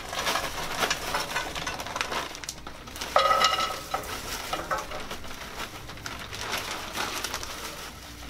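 Chicken pieces sizzling and crackling in a hot frying pan on the stove. A short, pitched squeak cuts in about three seconds in.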